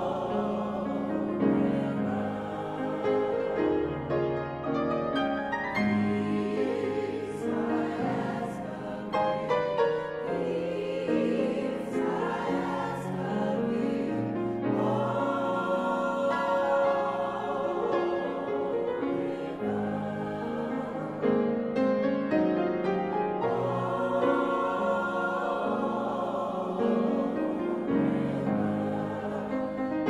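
A mixed chorus of men's and women's voices singing a gospel-style song with piano accompaniment, full and continuous.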